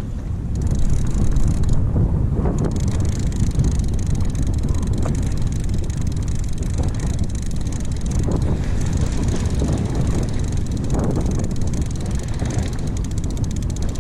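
Steady wind rumble buffeting the microphone on a small fishing boat, while a fishing reel is cranked to bring a hooked fish up to the surface.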